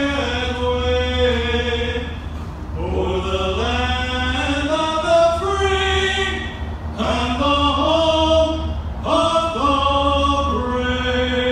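Voices singing a cappella in slow phrases of long held notes, over a steady low hum.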